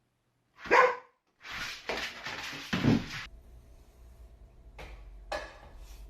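A dog barking; the loudest is one short bark a little under a second in, followed by further barks.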